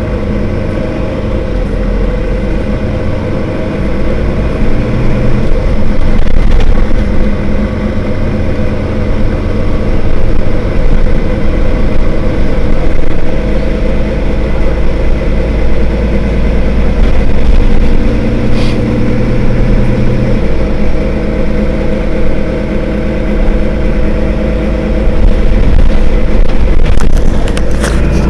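Mercedes-Benz Citaro city bus's diesel engine running under way, loud and steady, with the engine note changing about five seconds in and again about twenty seconds in. A few sharp clicks come near the end.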